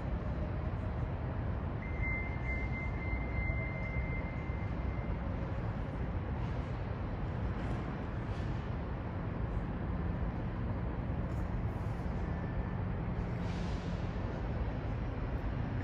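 Steady low rumble of city traffic, with a thin high-pitched squeal, like brakes, lasting about three seconds from about two seconds in.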